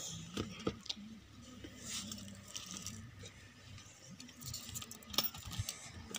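Light handling noises: scattered small clicks and taps with faint rustling, over a faint low hum.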